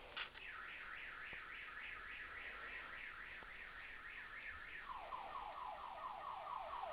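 Electronic siren tone in a car-alarm-style pattern: a rising sweep repeated about three to four times a second, switching about five seconds in to a lower, slightly faster sweep that stops abruptly.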